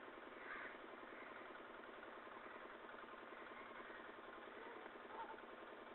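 A faint engine running steadily with a fast, even throb.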